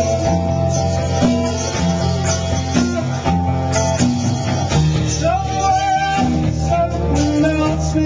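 A live band playing, with electric and acoustic guitars.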